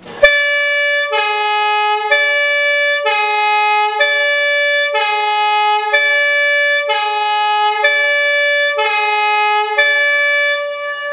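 Vintage fire engine's two-tone siren sounding hi-lo, switching between a higher and a lower fixed note about once a second. It starts suddenly and dies away shortly before the end.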